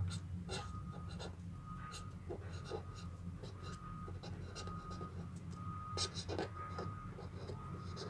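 Felt-tip marker writing on paper: quick, irregular scratchy strokes as words are lettered, over a steady low hum.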